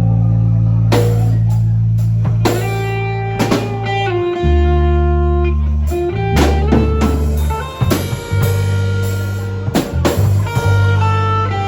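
Band music: electric guitar over a bass line and drum kit, in a bluesy style.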